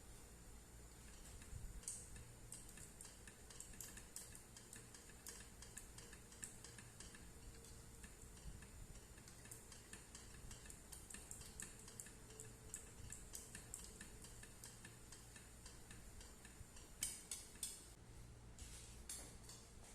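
Faint, irregular light clicks and taps of kitchen utensils during food preparation, with a short cluster of louder clicks near the end, over a low background hum.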